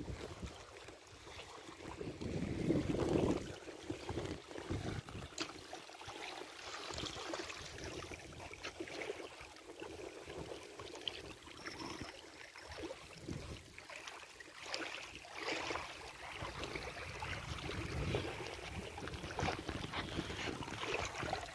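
Water splashing and running off a framed mesh fishing keepnet full of fish as it is lifted out of the shallows, with small waves lapping at the shore. Gusts of wind on the microphone come and go, the strongest about two to three seconds in.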